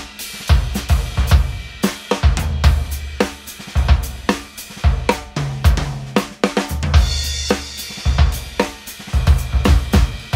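A 1967 Rogers Holiday drum kit played in a steady groove, with hi-hat, snare and cymbals over its 20-inch bass drum. The bass drum is wide open with nothing inside to muffle it, on its decades-old head. A cymbal crash rings out about seven seconds in.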